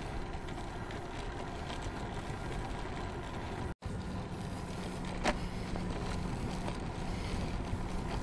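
Steady wind and road noise of a bicycle rolling on asphalt, picked up by a camera riding on the bike. It cuts out for an instant just under four seconds in, and there is one sharp click about five seconds in.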